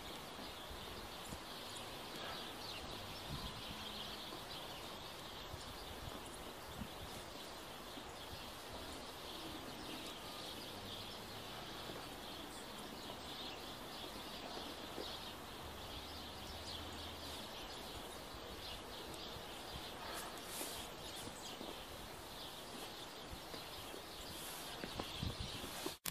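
Quiet outdoor winter ambience: a steady hiss with a dense, faint chatter of bird chirps throughout, and a faint low hum through the middle. A few light knocks near the end as the camera is handled.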